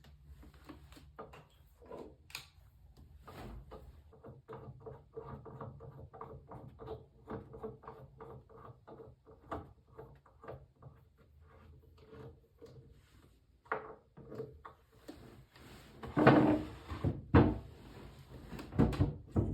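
Replacing drawer knobs with a screwdriver: a long run of small clicks and taps, then several louder knocks of drawers being closed near the end.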